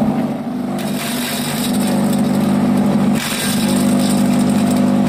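Homemade vegetable chopper driven by an electric motor salvaged from a Shimizu water pump, running with a steady hum as it shreds vegetable waste. A loud rushing noise joins the hum about a second in, drops out briefly around three seconds and comes back.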